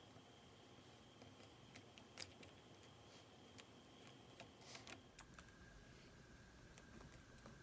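Near silence: room tone with a few faint, scattered clicks and taps, likely from handling the reassembled tablet.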